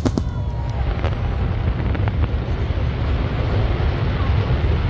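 Wind rumbling on the microphone over a steady outdoor din, with a few faint pops of fireworks.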